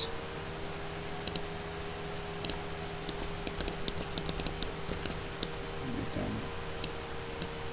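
Computer mouse clicks: a few scattered clicks, then a quick run of them about three to five and a half seconds in, over a steady faint hum.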